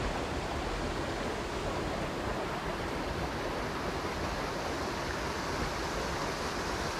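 Steady, even rush of water running over rocks in a small creek.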